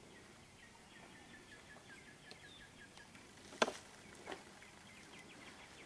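A sharp knock as the wooden lid of a beehive box is handled and lifted off, followed by a fainter knock under a second later. Behind it, a bird calls faintly in a quick run of short notes that slowly fall in pitch.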